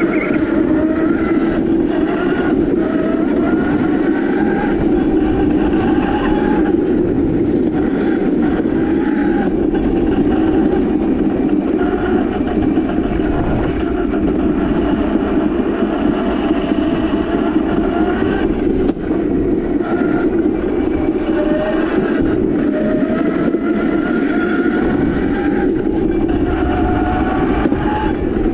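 Electric whine of a Crazy Cart drift cart's brushless motor, gliding up and down in pitch again and again as the cart speeds up and slows, over a loud, steady rolling rumble.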